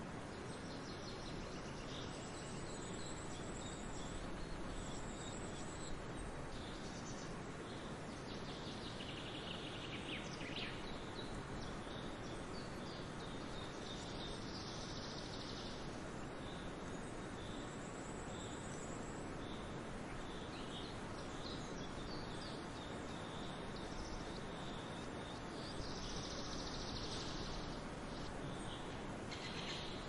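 Forest ambience: a steady hiss with scattered bird calls and high insect trills.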